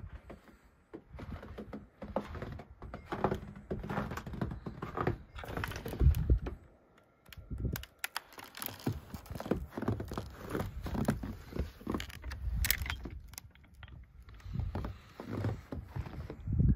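Handling noise and footsteps as someone carries a phone through the house and works a door to go outside: irregular clicks, knocks and rustling, with a heavy thump about six seconds in and another at the end.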